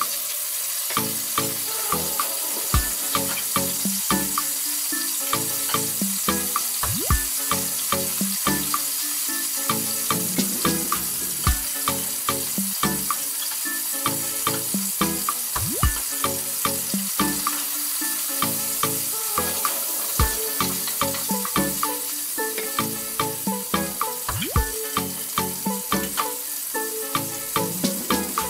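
Chicken thigh pieces sizzling as they brown in hot oil in a wok, a steady frying hiss. Background music with a regular beat plays over it.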